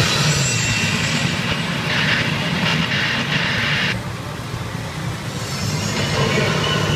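Loud, steady din of a pachinko parlour: many machines' electronic sounds and steel balls clattering, with a brighter, louder stretch in the middle as the P Ring Birthday machine in front plays its effects.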